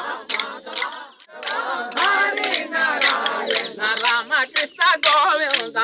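A group of men chanting a devotional refrain together, with sharp clacks of wooden sticks struck against each other in a stick dance, about every half second. The chant and clacks drop away briefly a little over a second in, then resume.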